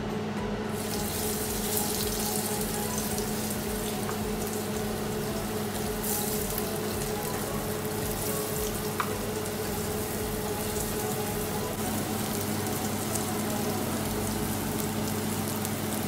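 Marinated tempeh slices frying in shallow oil in a pan: a steady sizzle that sets in about a second in as the pieces go into the hot oil. A steady low hum runs underneath.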